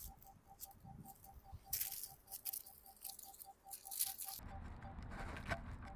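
Squirrel crunching a saltine cracker close to the microphone: irregular crisp crackles that stop about four seconds in, giving way to a steady low rumble.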